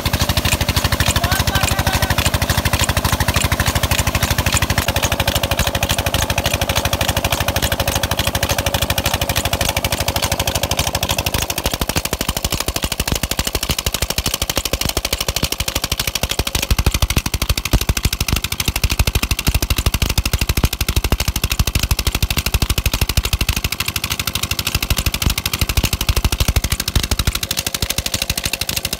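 Water gushing from a tube-well outlet pipe and splashing hard onto a motorcycle and into the channel, a dense, fast-beating splash. Under it the well pump's diesel "Peter" engine chugs steadily, plainest in the first eleven seconds or so.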